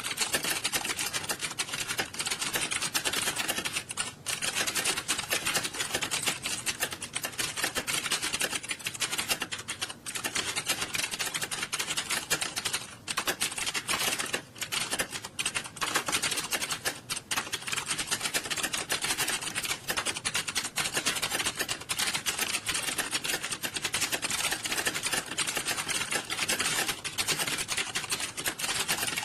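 Many computer keyboards being typed on fast at once: a dense, unbroken clatter of overlapping keystrokes from a hall full of candidates sitting a timed typing test.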